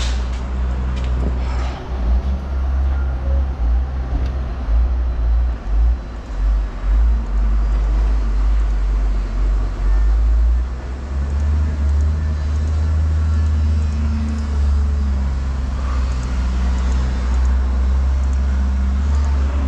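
A vehicle engine running: a steady low rumble.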